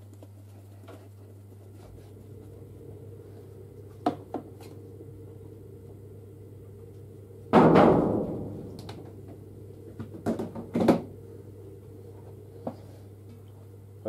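Clicks and knocks as a tumble dryer's lint filter and condenser water container are handled, with one loud bang about halfway through that rings out briefly, over a steady low hum.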